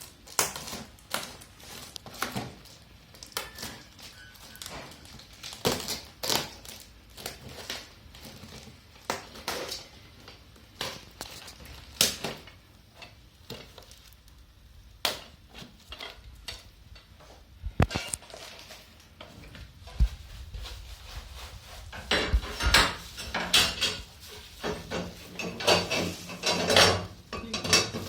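Irregular knocks, clicks and light metallic clinks of things being handled and unpacked, growing busier and more continuous near the end.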